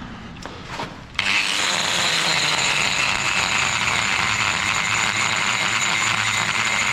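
A power tool switches on about a second in and runs steadily with a high whine.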